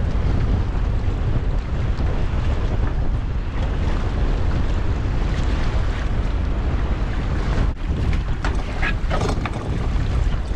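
Wind buffeting the microphone over choppy sea on a small open boat, with waves lapping as the rope of a string of lobster pots is hauled in by hand. Near the end come a few knocks and a brief squeak as a pot comes up over the side.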